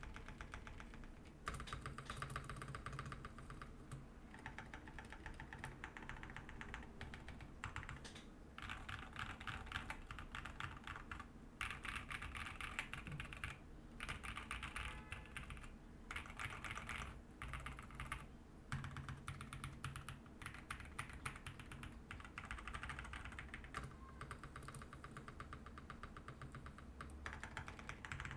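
Fast, continuous typing on a mechanical keyboard, a GMK 67 with Badseed V2 tactile switches and PBT keycaps, with short pauses between bursts of keystrokes.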